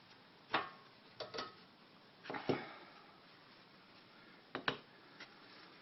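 Several sharp metal clinks and knocks at uneven intervals, the loudest about half a second and two and a half seconds in. These are hand tools and steel brake parts being handled while the front brake caliper is taken off.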